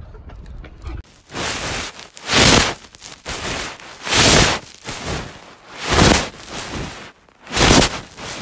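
Blanket fabric rustling close to the microphone in repeated sweeps, a loud swell about every two seconds with softer ones between, starting about a second in.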